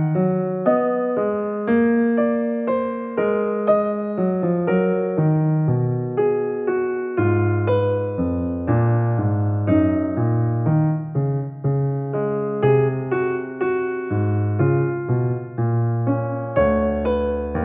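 Background piano music, a gentle electric-piano melody with chords.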